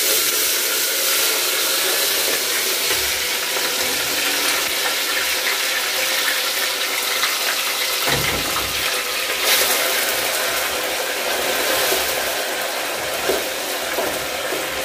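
Pieces of raw meat sizzling in hot oil in an enamel pot, a steady hiss of frying.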